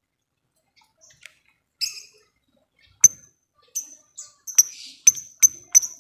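Lovebird giving short, sharp, high chirps, the ticking 'ngetik' call: a few scattered notes at first, then quickening into a steady run of about three chirps a second near the end.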